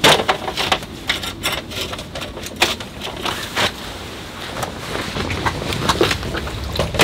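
Tent-pitching and gear-handling noises: a busy, irregular run of clicks, knocks and rustles from poles, fittings and fabric being worked.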